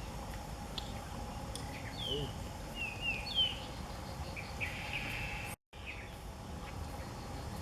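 Outdoor ambience with a few short bird chirps a couple of seconds in, over a steady low background and a faint constant hum. The sound drops out completely for a moment a little past halfway.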